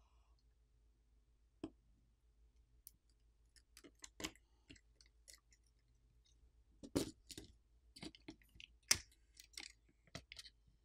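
Metal pry tools clicking, tapping and scraping on a smartphone's plastic frame and flex cable while parts are pried loose. The clicks are faint and scattered, the sharpest about 4, 7 and 9 seconds in.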